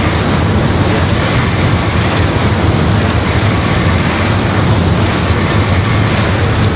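Paddle steamer's paddle wheel churning the river, a loud steady rush of foaming water and spray.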